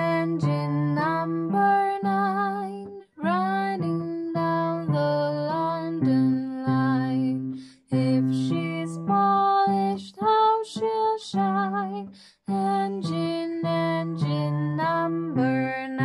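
Yamaha digital piano played with a voice singing over it with vibrato; the music breaks off briefly between phrases about three, eight and twelve seconds in.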